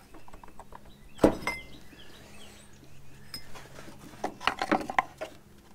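Hands working parts loose at the front of a VW Rabbit pickup's engine, taking off the timing belt cover: one sharp knock about a second in, then a run of light clinks and rattles near the end.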